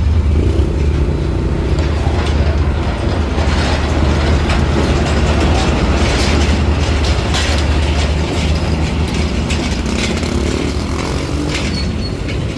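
Diesel train passing over a road level crossing: a steady heavy engine rumble with a run of metallic clanks and rattles from about three to eight seconds in.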